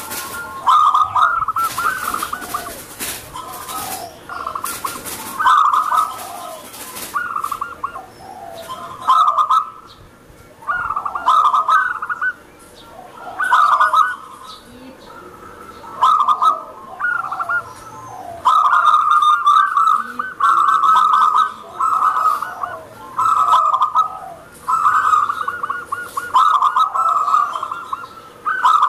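Zebra dove (perkutut) singing its rippling coo phrases over and over, each about half a second to a second long. The phrases come every second or two and run almost without a break in the second half.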